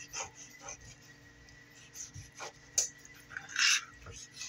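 Fillet knife sliding between a bass fillet and its skin on a wooden cutting board: a few short, irregular scraping strokes, with a longer, louder scrape about three and a half seconds in.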